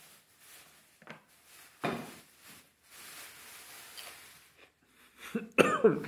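Quiet sounds of a man eating a piece of hot chile pepper: a few faint short mouth and handling noises and a soft hiss lasting about a second and a half in the middle. Near the end comes a loud vocal exclamation as the heat of the seeds hits.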